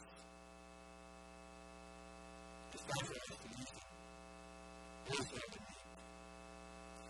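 A steady electrical hum-buzz with many evenly spaced overtones, typical of mains hum in a microphone and sound system, heard in a pause in speech.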